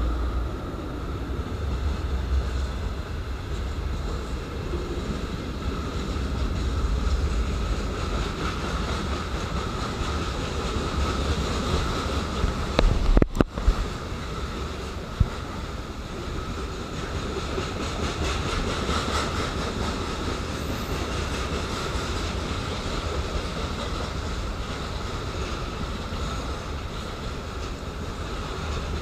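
Freight train wagons rolling past at speed behind a VL10 electric locomotive: a steady rumble and rail noise from the wheels, heaviest in the first few seconds. About halfway through, a short burst of loud crackles and a momentary dropout cut in.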